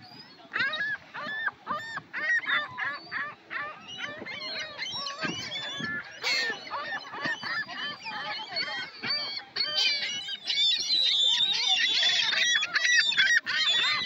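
A flock of gulls calling over one another, many short cries rising and falling in pitch, growing denser and louder in the last few seconds.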